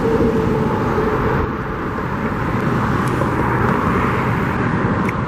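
Steady road traffic noise from vehicles going by.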